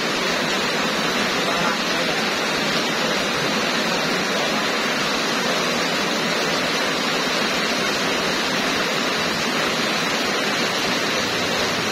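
Heavy tropical downpour falling on a waterlogged street: a steady, even hiss of rain.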